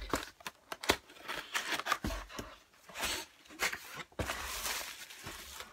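Hands opening a flat cardboard box: flaps scraping and tapping, with short rustles of the bubble wrap inside.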